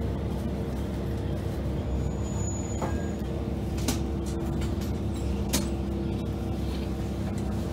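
Diesel railcar rolling slowly into a station, its engine running with a steady low rumble and hum. Two sharp clicks stand out about four and five and a half seconds in.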